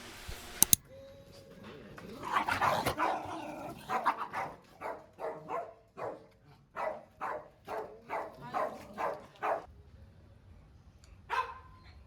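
Two sharp clicks, then a dog barking: a run of short barks about two to three a second for several seconds, and one more bark near the end.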